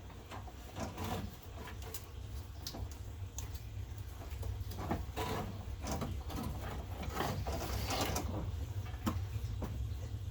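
Car radiator being worked loose and pulled out of the engine bay: irregular knocks, clicks and scraping as it is yanked up and wiggled against its brackets and the condenser, over a steady low hum.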